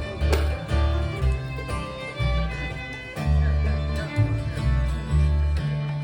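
Acoustic bluegrass string band playing an instrumental passage, with a fiddle to the fore over strummed guitar and a low bass line that changes note about twice a second.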